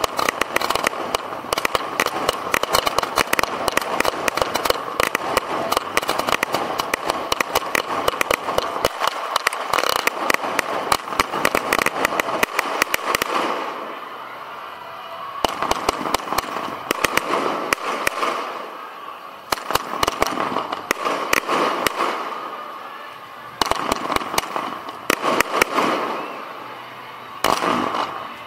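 Professional firework display heard right beside the firing site: a dense, rapid run of launches, bangs and crackle that thins out briefly four times before picking up again.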